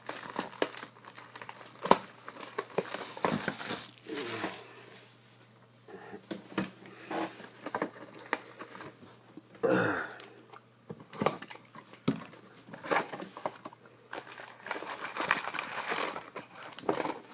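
Plastic wrapping on a box of hockey cards being crinkled and torn open, in irregular rustling spells with sharp crackles.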